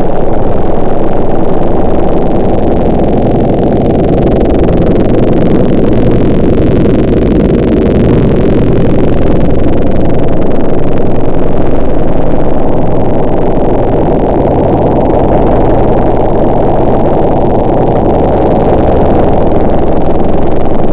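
A loud motor running steadily and without a break, its level swelling and easing slightly every few seconds.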